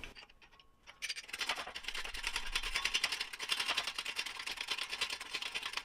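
Rapid, fine metallic clicking and scraping from a 20-ton shop press's bottle jack as its threaded ram extension is spun down by hand toward the pressing tool. The clicking starts about a second in.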